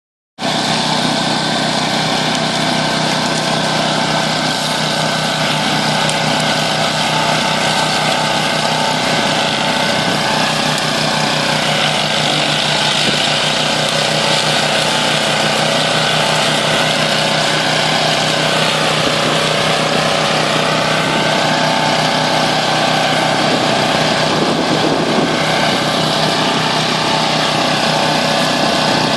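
Engine of an OREC HRC 802 tracked flail mower running steadily. Its pitch sags slightly and recovers a couple of times, around ten seconds in and again near twenty seconds.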